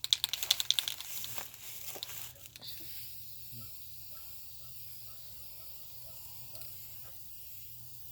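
Aerosol can of spray lacquer rattling quickly as it is shaken for about the first second, then a steady spraying hiss as a coat of lacquer goes on.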